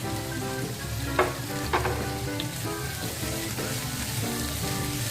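Chopped carrots and garlic sizzling in hot oil in a frying pan while being stirred, with two sharp knocks about a second in and again half a second later.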